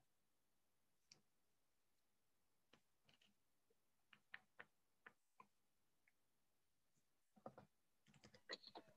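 Near silence broken by scattered faint keyboard clicks, thickening into a quick run of keystrokes near the end.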